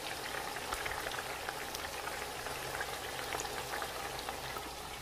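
Whole baked chicken deep-frying in hot oil in a large pot: steady sizzling and bubbling dotted with many small crackling pops.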